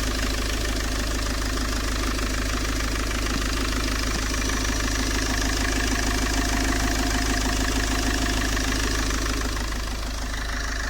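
2005 Peugeot 807 HDi diesel engine idling steadily, a little quieter near the end.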